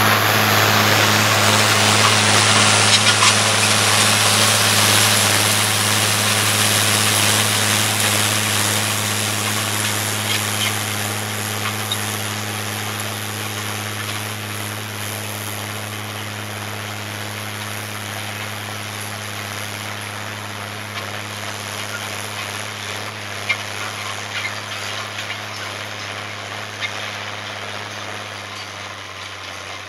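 International Harvester 956 XL tractor's six-cylinder diesel engine running at a steady working speed while pulling a stubble cultivator, with a broad rushing noise over the engine note. The sound fades slowly as the tractor moves away.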